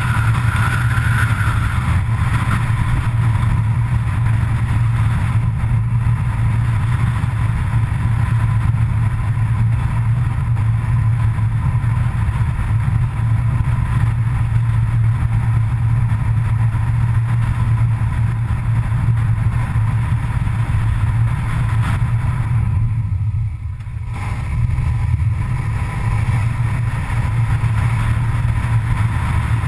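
Road vehicle driving at speed: a steady low drone of engine and tyre noise that dips briefly about 23 seconds in.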